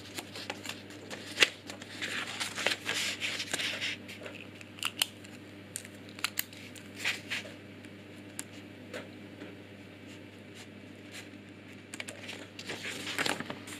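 Sheet of paper being handled and rustled, with scattered sharp clicks and scratches. The rustling is densest in the first few seconds, thins out to occasional clicks, goes quiet for a while, and picks up again near the end.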